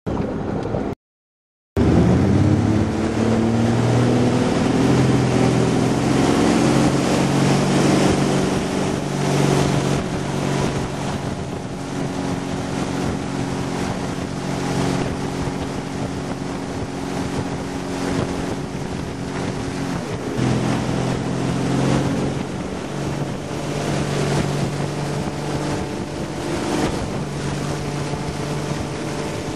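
Tow boat's engine pulling a barefoot water-skier: it comes in after a brief silent gap, rises in pitch as the boat gets up to speed, then runs steadily at speed with a short dip in pitch about twenty seconds in. Wind on the microphone and rushing water spray throughout.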